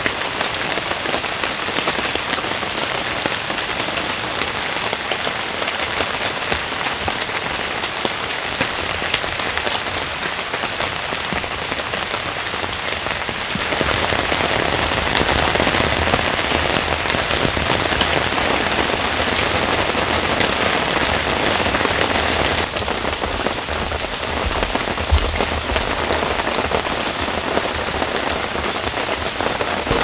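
Heavy rain falling steadily. Around the middle it grows louder and fuller for about nine seconds, then eases back to its earlier level.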